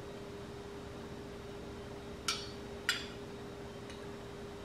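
Two light clinks of a straw against a drinking glass, about half a second apart, over a faint steady hum.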